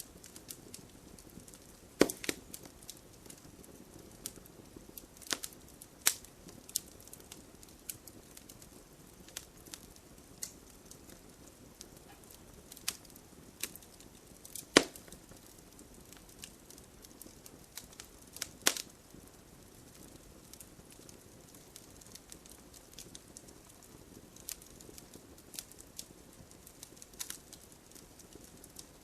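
Wood fire burning in a fireplace: a soft steady hiss with irregular sharp pops and crackles, a few of them loud.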